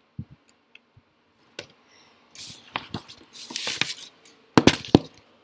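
Handling noise of paper notes and a textbook on a desk: scattered small clicks, rustling from about two and a half seconds in, then several sharp knocks near the end, which are the loudest sounds.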